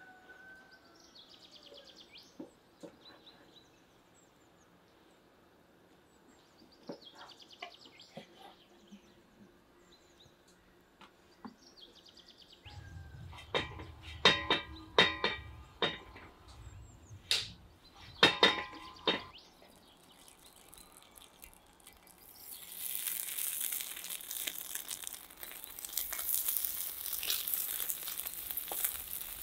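A few faint bird chirps, then a run of sharp metallic clanks with a ringing tone as a wide shallow iron pan is handled over the fire. About three quarters of the way in, pieces of lamb fat start sizzling steadily in the hot pan.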